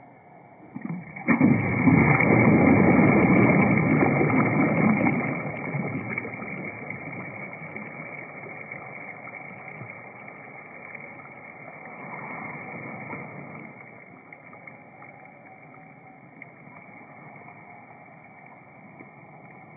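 Water splashing and swirling as a released bass kicks away from the shallows, loudest for a few seconds about a second in, then fading to a low steady wash.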